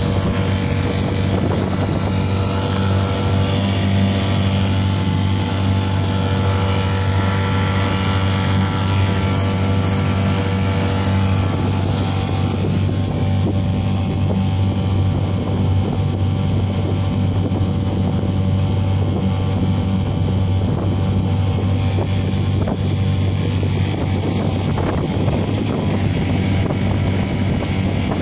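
6 hp Johnson outboard motor running steadily under way, driving the boat along at an even speed, with water rushing in the wake.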